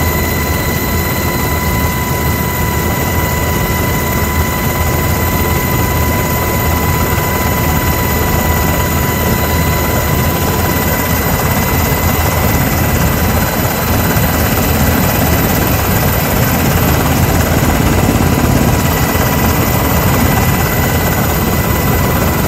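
Military helicopter in flight heard from inside the cabin: a loud, steady drone of rotor and engines with a constant high whine over it.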